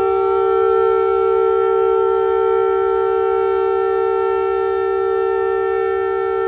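Diesel locomotive air horn of ZCU30 6314 sounding one long, unbroken departure blast. It is a steady chord of two close notes at the same level throughout, the signal that the Eid special train is about to leave.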